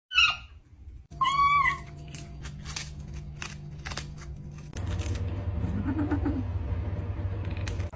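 Kitten meowing: a short call right at the start, then a longer, rising-and-falling meow about a second in. Faint scattered clicks follow.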